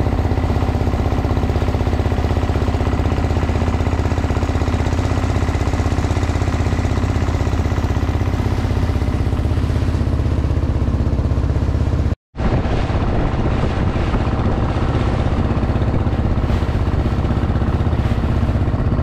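Small wooden boat's engine running steadily under way, a low pulsing drone over a rush of wind and water. The sound drops out for a split second about twelve seconds in and resumes.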